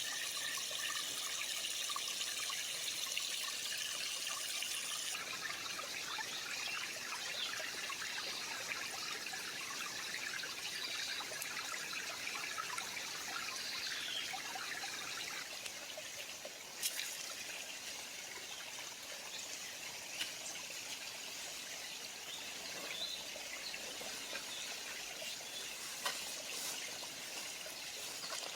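Creek water trickling and running steadily over stones, with a couple of short sharp clicks about two-thirds of the way through.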